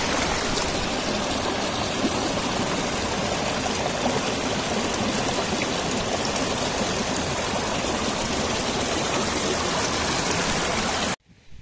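Small mountain stream rushing and gurgling over rocks, a steady even noise that cuts off abruptly near the end.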